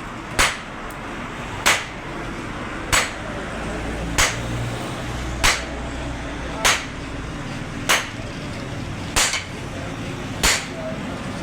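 Hammer blows on metal: nine sharp, evenly spaced strikes about one and a quarter seconds apart.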